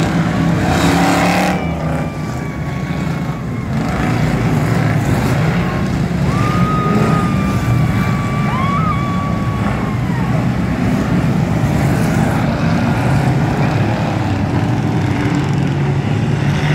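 A field of full-size stock cars racing in an enduro on a dirt oval, many engines running together loud and steady.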